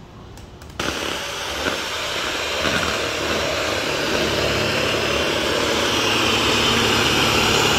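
Electric hand mixer switching on just under a second in, then running steadily with its beaters whipping cream in a plastic bowl.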